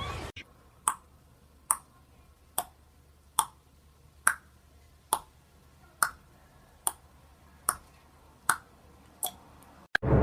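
Short, sharp clicks repeating at an even pace, a little more than one a second, about eleven in all.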